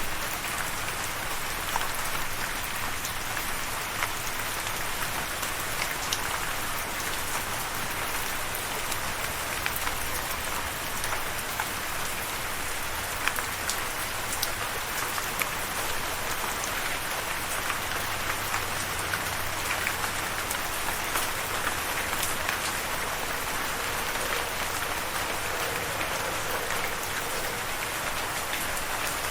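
Steady rain falling, a constant hiss with many small drop ticks hitting a surface.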